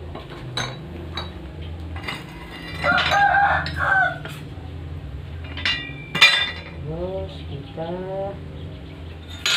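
A rooster crows about three seconds in, followed by a few short falling calls near the end. Pieces of scrap steel clink sharply against each other a few times as they are handled, the loudest clink a little after halfway.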